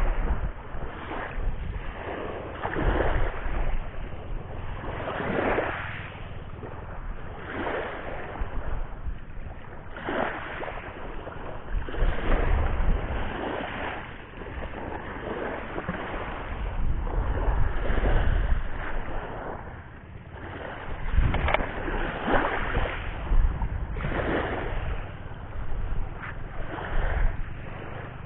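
Surf washing on a beach, swelling and fading every few seconds, with wind buffeting the microphone.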